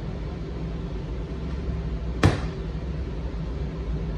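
Steady low hum with one sharp smack a little over halfway through and another at the very end.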